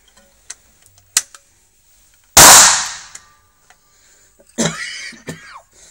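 One loud shot from a Baikal .410 magnum shotgun loaded with a Brenneke slug, echoing in an indoor range and fading over most of a second. Small handling clicks come before it, and a shorter, quieter noise follows about two seconds later.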